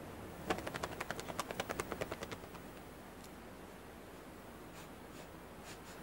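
A quick run of crisp crunching clicks, about ten a second, for about two seconds, then faint low background noise with a few scattered clicks.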